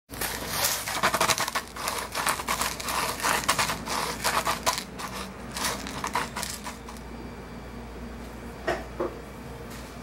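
Salt grinder crunching out salt over raw beef steaks in quick irregular bursts. It stops about seven seconds in, and two short taps follow a moment later.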